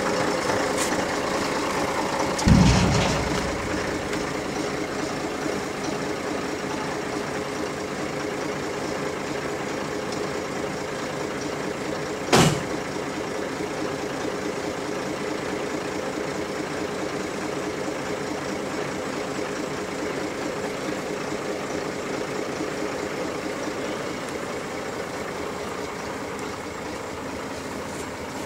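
Truck engine idling steadily, with a loud low thump about two and a half seconds in and a sharp knock near the middle.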